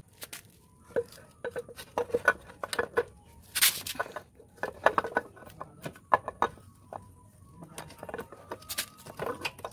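Motorcycle roller chain clinking and rattling against the rear sprocket as it is handled and fitted by hand: a rapid, irregular run of sharp metallic clicks with a little ringing.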